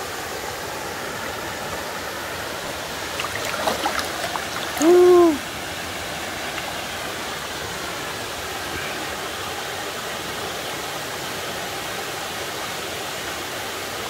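Steady rush of a mountain stream pouring over a small waterfall into a pool, with a few light splashes about three to four seconds in. About five seconds in, a brief, loud wordless vocal call rises and falls over it.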